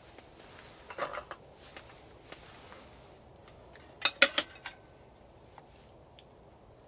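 Metal spoon clinking and scraping against an enamel bowl while scooping up stew: a few soft clinks about a second in, then a louder run of three or four sharp clinks about four seconds in.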